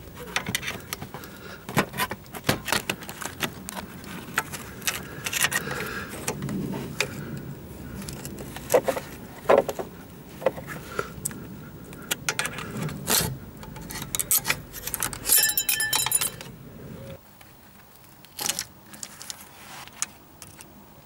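Metal tools and parts clinking and knocking in a run of irregular sharp clicks, with a short ringing metallic rattle shortly before the handling stops near the end.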